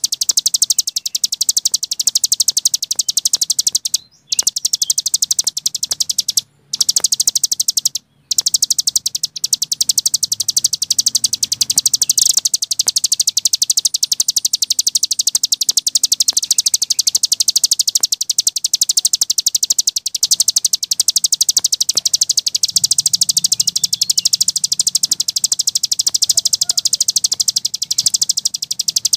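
Cici gunung songbird singing a fast, unbroken run of rapid high chattering ticks. The song breaks off for a moment three times in the first third.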